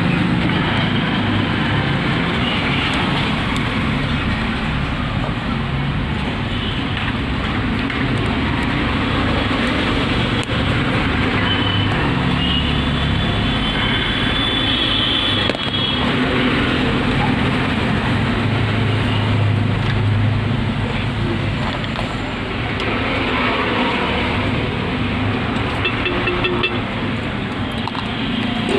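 Steady road traffic noise: a continuous low rumble of passing vehicles.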